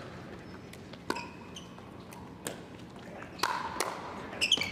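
A pickleball rally: paddles striking a Franklin X-26 ball in a series of sharp pops, spaced out at first and coming quicker near the end as the players trade shots at the net.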